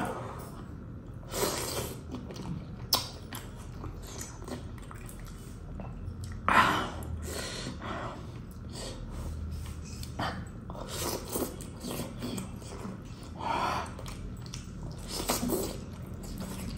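Close-miked eating of a curried mutton leg piece: biting and chewing the meat in separate bursts every few seconds, with sharp clicks, the loudest burst about six and a half seconds in.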